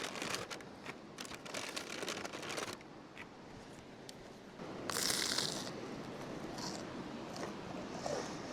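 A plastic bag crinkling and rustling as it is handled, in short crackly bursts, with a brief louder rustle about five seconds in.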